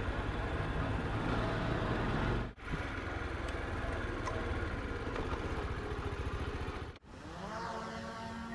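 Honda Super Cub 90's small air-cooled single-cylinder four-stroke engine running steadily while the bike is ridden, broken by a short cut. About seven seconds in, a DJI quadcopter drone's motors spin up: a rising whine that settles into a steady hum.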